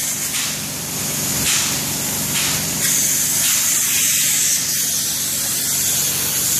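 Hose-fed spray gun hissing steadily as it sprays a liquid roof coating (Permaseal Rhino Eco Coat), the spray changing strength a few times, over a low steady hum.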